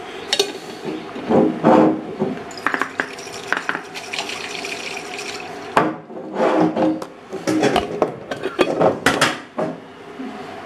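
A glass pasta-sauce jar with a little water in it, handled and shaken to rinse out the last of the sauce: irregular clinks and knocks of glass and lid, with a stretch of watery, hissing noise in the middle.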